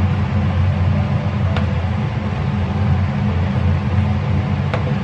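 A steady, loud low hum, like an appliance motor, with two faint clicks of a metal spoon against a plastic mixing bowl.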